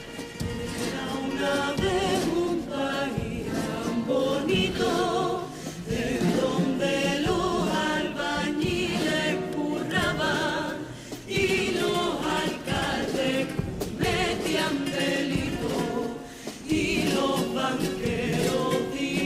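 Cádiz carnival comparsa choir singing a pasodoble in several voice parts, accompanied by strummed Spanish guitars.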